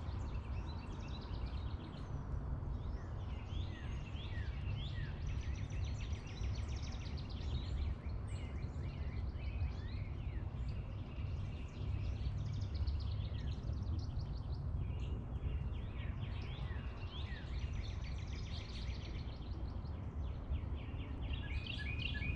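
Small wild birds chirping and singing almost continuously over a steady low outdoor rumble, with a busier flurry of calls near the end.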